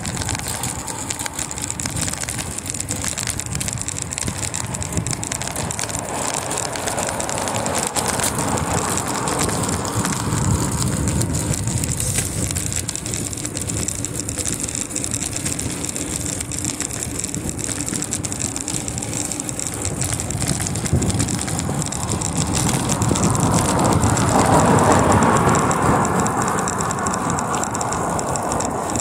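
Steady wind and road noise while riding a bicycle. It swells twice, around ten seconds in and again near the end.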